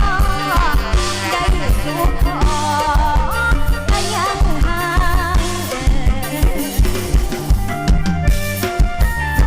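Isan mor lam band music: a drum kit keeps a steady beat, about two hits a second, under a wavering lead melody that settles into held notes later on.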